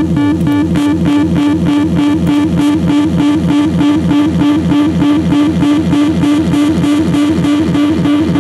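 DIY dub siren synth (Ekoplasm) pulsing rapidly, about four to five pulses a second, each pulse sweeping down in pitch, run through its own echo/reverb section and played out of a small portable speaker.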